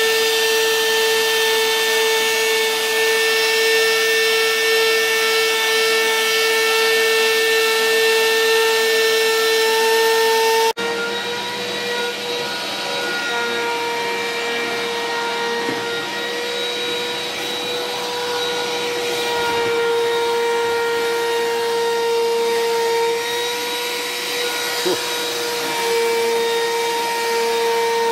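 1 hp Bosch trim router serving as a hobby CNC router's spindle, running at speed with a steady high whine. After a sudden break about a third of the way through, it runs slightly quieter as its ball-nose bit carves a cherry plank, the pitch dipping briefly now and then under the cutting load.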